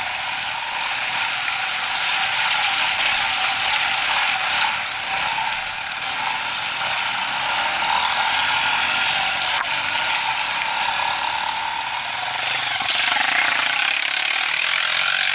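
Off-road motorcycle engine running steadily with a rattly mechanical clatter, a little louder near the end.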